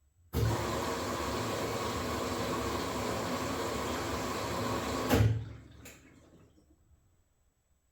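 Washing machine taking in water: a steady rush starts suddenly, runs about five seconds, then cuts off with a knock as the inlet stops. A single click follows.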